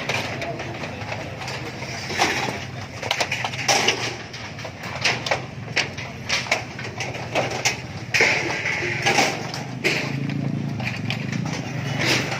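Irregular knocks, bangs and clatter of wind-storm debris being cleared by hand, the strokes short and sharp and coming at uneven intervals.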